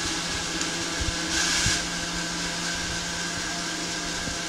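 A steady mechanical hum from a motorised machine, a whir with a fixed whine and a hiss over it that briefly gets louder about a second and a half in. It is an intrusive background noise that is holding up the recording.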